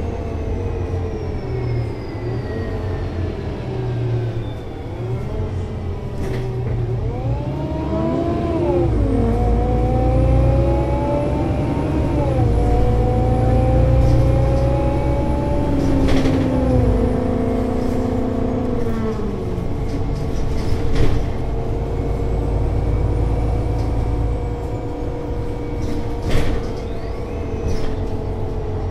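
Solaris Urbino 18 IV articulated bus's DAF diesel engine and Voith Diwa 6 automatic gearbox. The engine note falls, then rises as the bus pulls away, stepping down at gear changes about nine and twelve seconds in; it then falls again and settles to a steady note over a low rumble. A few short clicks and knocks sound along the way.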